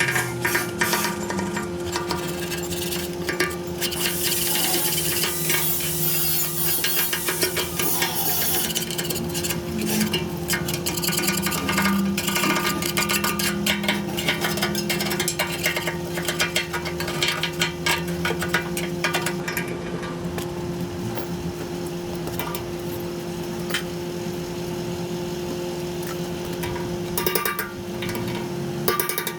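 Hand-tool work: many short knocks, clinks and scrapes over a steady hum.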